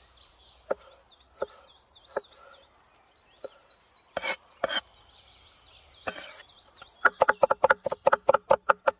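Cleaver chopping diced tomatoes on a wooden cutting board: a few single knocks, two short scraping sounds near the middle, then rapid, even chopping at about six strokes a second near the end. A bird sings repeated warbling notes in the background.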